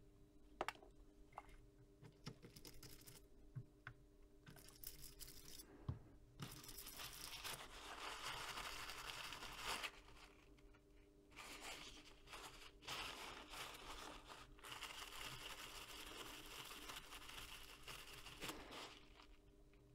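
Faint rubbing and wiping as flux-cleaner residue is cleaned off a small circuit board with a cloth. It comes in two long stretches after a few light clicks.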